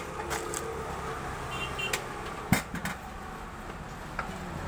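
Kitchen knife slicing red onion against a chopping board: a few irregular knocks of the blade on the board, the loudest about two and a half seconds in, over a steady low rumble.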